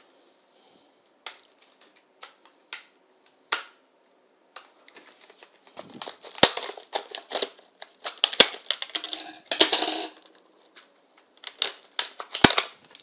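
Scissors cutting through a stiff clear plastic blister pack: the plastic crackles and snaps as the blades close, after a few seconds of scattered clicks of the pack being handled. A few sharp knocks stand out, the last near the end as the scissors are set down on the wooden table.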